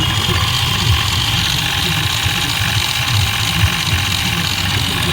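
Mahindra Bolero Neo's three-cylinder diesel engine idling, with a steady low throb and a steady high hissing whine above it.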